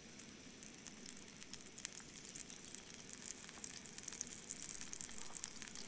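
Steak burger patty frying in rice bran oil in a pan on a portable gas stove: a steady, quiet sizzle with fine crackles that grow busier near the end.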